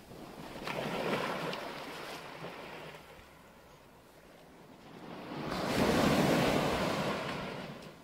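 Small waves breaking and washing up the sand at the water's edge, coming in two surges; the second, about five seconds in, is the louder.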